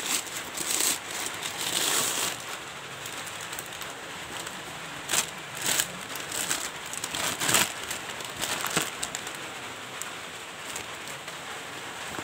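Silver plastic courier mailer bag crinkling and rustling as it is handled and pulled off a cardboard box, busiest in the first couple of seconds, with a few sharper crackles about midway.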